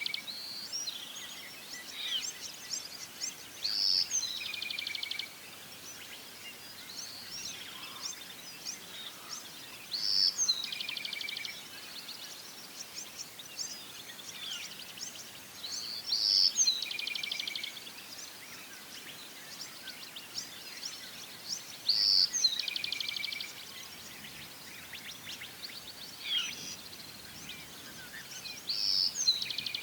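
A songbird repeating the same short song about every six seconds: a high clear note, a fast buzzy trill, then a lower note. Other birds chirp faintly in between over a soft background hiss.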